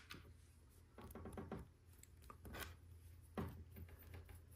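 Faint clicks and rustling of plastic Lego Technic pieces being handled, with a sharper click about three and a half seconds in, over a low steady hum.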